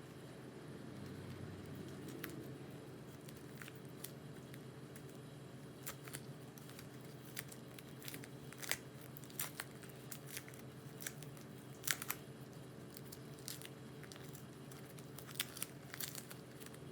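Irregular small sharp clicks, snaps and crinkling from hand work on a small die-cast model car, over a steady low hum.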